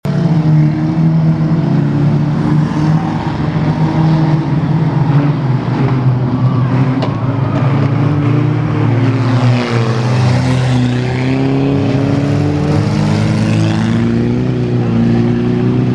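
Several 2-litre rear-wheel-drive banger racing cars' engines running hard together on the track. Their pitches overlap and rise and fall as the cars lap, with a noticeable sweep up and down about halfway through.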